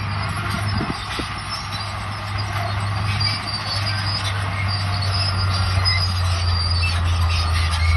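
Bulldozer's diesel engine running steadily with squealing and clanking from its steel tracks, growing a little louder.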